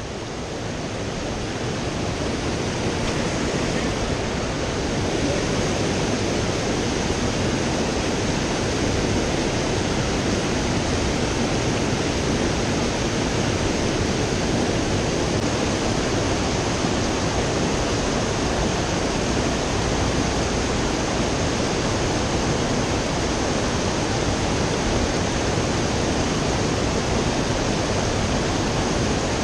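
Shallow creek rapids rushing over rocks: a steady wash of whitewater noise.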